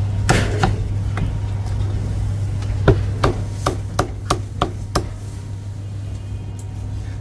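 Heavy Chinese cleaver chopping crispy roast pork belly on a thick round wooden chopping block: a few strokes in the first second, then a run of about seven sharp chops, roughly three a second, from about three seconds in. A steady low hum runs underneath.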